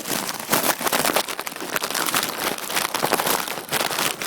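Dense rustling and knocking from cardboard boxes being grabbed and handled in a hurry, a rapid jumble of scrapes and taps.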